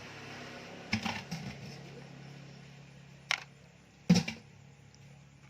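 A few sharp clicks and knocks, the loudest near the end, over a low steady hum that fades away.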